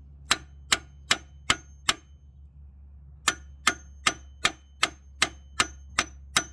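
Rapid, evenly spaced metal-on-metal hammer strikes on the end of a long steel crowbar, driving its tip against a freeze plug in the engine block to knock it loose. About five strikes, a break of over a second, then about nine more.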